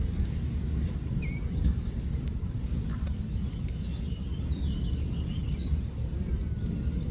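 Wild birds chirping: a quick burst of high, sharp chirps about a second in, then scattered twittering calls, over a steady low rumble.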